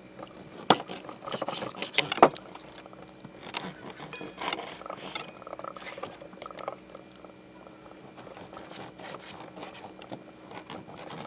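Fork and knife clinking and scraping against a metal plate while cutting a grilled steak, with a few sharp clinks in the first couple of seconds and lighter taps after.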